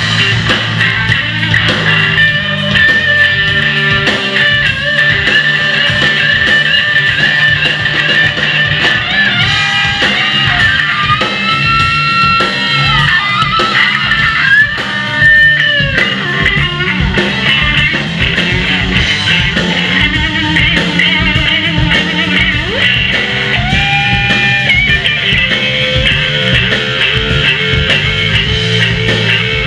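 Live rock trio playing an instrumental passage: a lead electric guitar over drums and bass guitar. In the middle and again later, the guitar plays long notes that are bent up and down and held.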